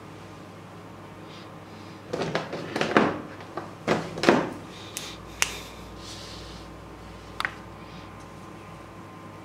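Handling noises of drawing paper and felt-tip markers: a cluster of rustles and knocks lasting about two and a half seconds, starting about two seconds in, then three single sharp clicks over the following few seconds.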